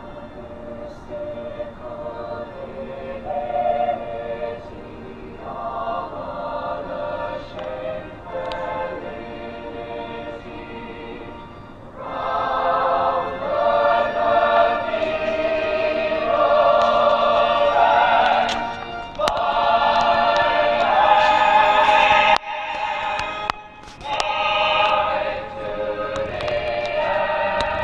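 Stage-musical music with a choir singing, growing louder and fuller about twelve seconds in, with a brief drop about two-thirds of the way through.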